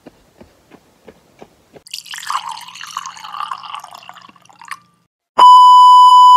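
Light, evenly paced footsteps of someone running on a dirt road, about three steps a second. About two seconds in, a shimmering sound effect plays for nearly three seconds. Near the end, a loud, steady high beep cuts in for about a second: the TV colour-bars test tone.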